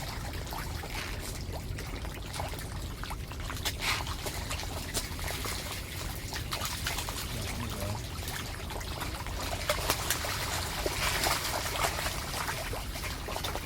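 Water trickling and splashing steadily, with many small scattered clicks and splashes.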